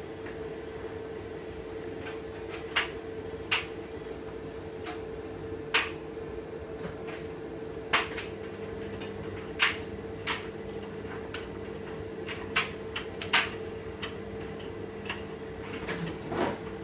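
Washing machine running with a steady hum and irregular sharp clicks and knocks, about one every second or two. The drum is not yet spinning up because the load is heavy with still-wet clothes.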